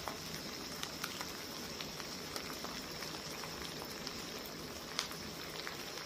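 Stir-fry of beef and snow peas sizzling in the pan, a steady hiss with scattered small pops and ticks.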